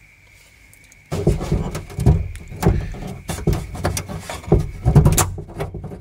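Irregular clicking, tapping and rattling of a car door handle's metal linkage bar and its small plastic clip being handled and fitted inside the door, starting about a second in.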